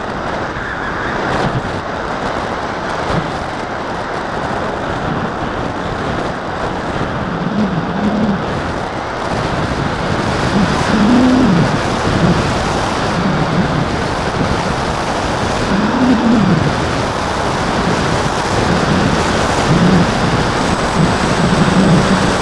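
Wind rushing over the onboard camera of a fixed-wing FPV model plane in flight, with the plane's motor and propeller droning underneath. The drone's pitch rises and falls every few seconds.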